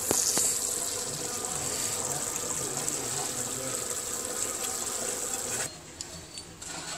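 Chickpea curry gravy boiling in an aluminium pot, a steady bubbling hiss that cuts off about six seconds in, leaving quieter room tone.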